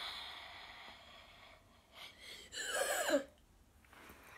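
A person's breathy hiss close to the microphone, fading out, then a short wordless vocal sound that falls in pitch about halfway through.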